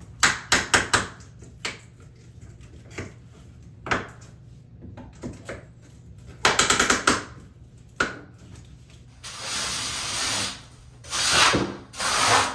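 Tile-setting hand work: several sharp clicks and short runs of rapid clicking, then a few seconds of scraping about two-thirds of the way through, and again near the end.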